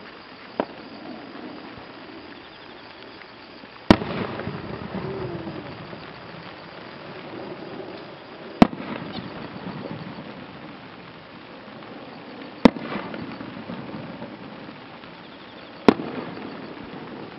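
Aerial firework shells bursting one at a time: a small bang just after the start, then four loud booms about four seconds apart, each trailed by a rolling rumble.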